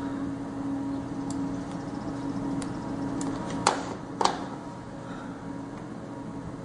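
A HIFU treatment machine hums steadily, likely its B-mode ultrasound probe motor turning the probe to capture the 90-degree image. The hum stops about three and a half seconds in and is followed by two sharp clicks about half a second apart. A few faint ticks come earlier.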